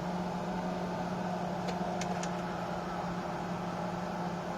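Citroën BX heater blower fan running steadily with an even hum and a few faint ticks about two seconds in. It sounds normal, without the annoying noise it used to make.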